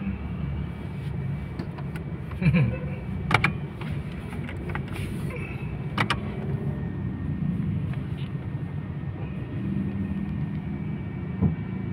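Car engine idling, heard from inside the cabin as a steady low hum, with a few sharp clicks about two and a half, three and a half and six seconds in.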